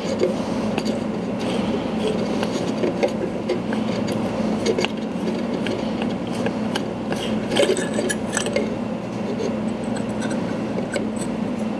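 Oil catch can bowl being unscrewed by hand from its mounted head: light scraping of the threads with small metallic clicks and clinks, a cluster of them about eight seconds in as the bowl and its baffle come free.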